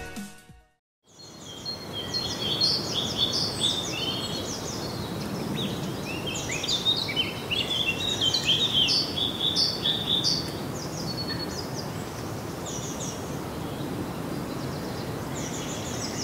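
Music cuts off at the start, and after about a second of silence comes outdoor ambience full of many small birds chirping: short, quick, down-sweeping high notes, busiest in the first half, over a steady background hiss.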